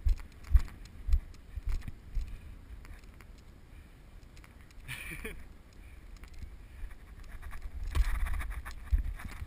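Muffled rumble and irregular low bumps from a head-mounted action camera in a sealed waterproof housing, jostled by the wearer's movement and wind. A louder stretch of rustling comes about eight seconds in as the camera tips toward the grass.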